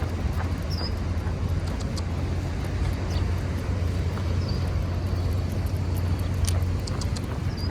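Steady low hum of a motor vehicle's engine close by, with faint scattered taps of running footfalls.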